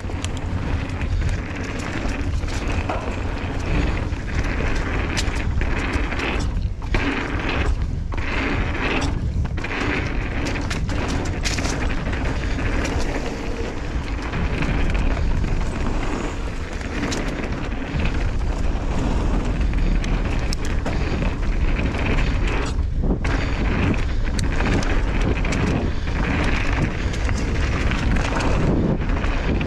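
A mountain bike ride down a dirt flow trail: steady wind buffeting on the microphone, with tyres rolling over the dirt and frequent sharp clicks and knocks as the bike rattles over bumps, berms and rollers.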